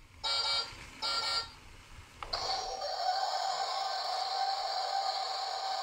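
Electronic sound effects from a toy fire truck's built-in sound unit: two short beeps, then a click about two seconds in and a long, steady electronic alarm tone that glides up briefly at its start.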